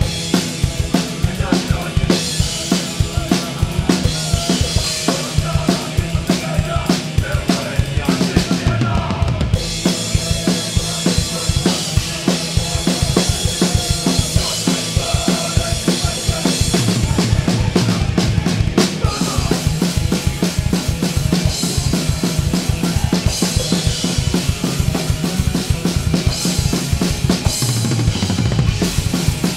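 Drum kit played live at full volume, close up: rapid bass drum strokes under snare hits and crashing cymbals, with the band's guitars and bass underneath.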